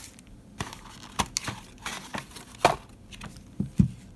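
Cardboard box packaging and a wrapped speaker being handled on a desk: a scatter of light taps, knocks and rustles, the loudest two about two-thirds of the way through and near the end.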